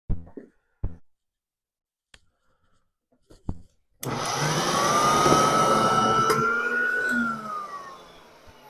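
A few handling clicks, then a vintage Hoover model 115 upright vacuum is switched on about four seconds in. Its motor starts suddenly with a whine climbing in pitch as it spins up, runs for about three seconds, then is switched off and winds down with a falling whine. Its drive belt has come off.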